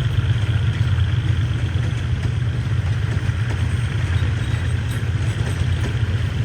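Diesel train engine running steadily with a low rumble.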